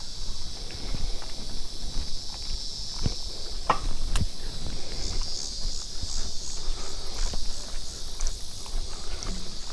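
Insects trilling steadily, high-pitched, with a pulsing run of calls in the middle of the stretch. Close by, footsteps and scattered knocks and scuffs.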